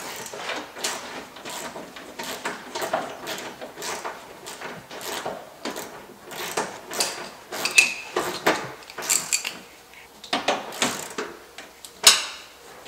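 Irregular clicks, knocks and clatter of hand tools and metal fittings being worked on a car's front end, with a brief metallic ring about eight seconds in and a sharp knock near the end.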